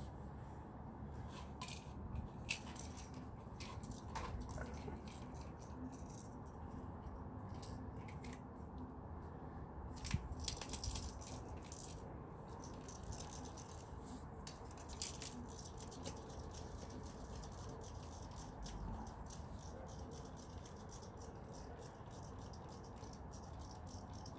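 Faint, irregular clicks and rattles of small objects being handled, over a low steady hum.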